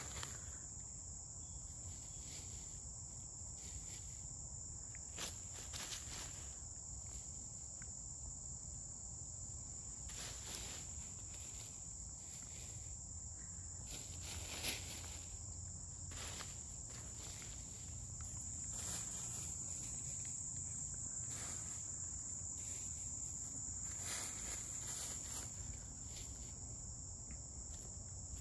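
Steady high buzzing of insects, which grows a little louder about two-thirds of the way in. Over it, scattered short rustles and crackles of dry leaf litter as ISA Brown hens scratch and peck at the ground.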